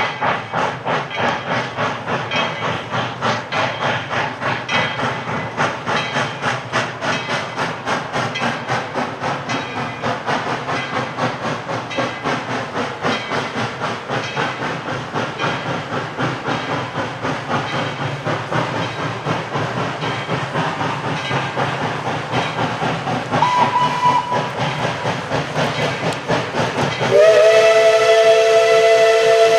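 Steam locomotives working a train away from the station, with a fast, steady exhaust chuff and hiss. A short higher whistle toot sounds about three-quarters of the way through, then near the end a loud chime steam whistle of several notes blows and holds.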